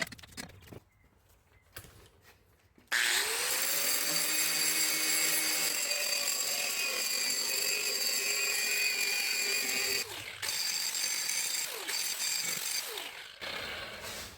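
Handheld electric sander run on welded steel, cleaning up the weld. The motor spins up about three seconds in, runs steadily with a high whine, dips briefly about ten seconds in, and winds down near the end.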